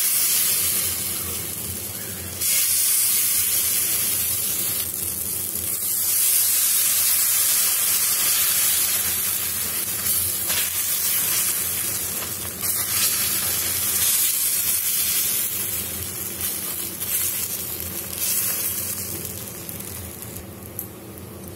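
Adai dosa batter sizzling loudly as it is ladled onto a hot dosa tawa and spread out with the ladle. The sizzle jumps up sharply about two seconds in and eases off near the end.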